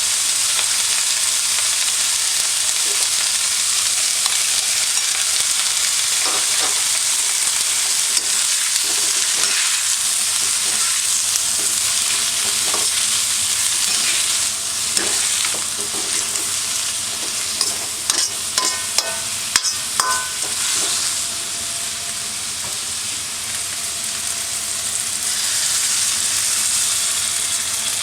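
Food sizzling and frying in a hand-hammered iron wok (Yamada Kogyosho, 30 cm), stirred with a metal utensil that scrapes and clinks against the pan. It is a steady frying hiss with scattered knocks, which come in a quick run about two-thirds of the way through.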